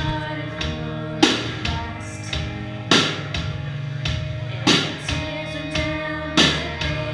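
Live rock band playing drum kit and electric guitar: sustained guitar chords over a slow beat, with a loud accented drum-and-cymbal hit about every 1.7 seconds, four times.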